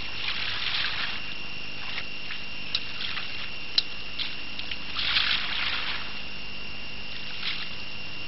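Sea water lapping and sloshing at the water's edge, swelling most strongly about five seconds in. Underneath runs a steady high-pitched whine, with two sharp clicks a few seconds in.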